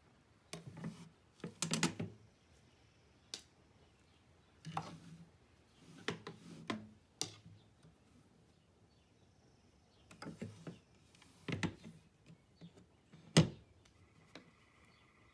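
Irregular light clicks and soft knocks of hands handling yarn and the wooden frame of a rigid heddle loom, with one sharper knock near the end.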